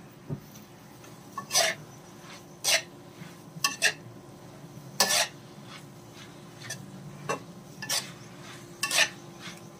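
Metal slotted spatula scraping and clinking against an aluminium karahi while stir-frying chopped chicken and vegetables. The clinks and scrapes come irregularly, roughly one a second.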